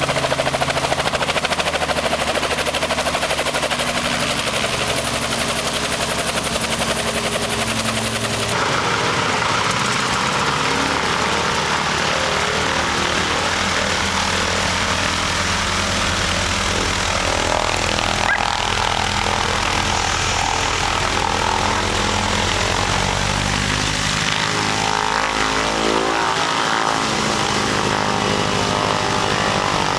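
A Robinson helicopter running on the ground at a steady idle. After a cut about eight seconds in comes a Harvard Mk.4 trainer's radial engine running as the plane taxis. The engine's pitch rises and falls near the end.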